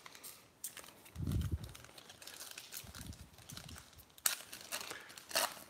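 Foil trading-card pack wrapper crinkling as it is torn open by hand, with a sharp snap of the wrapper about four seconds in.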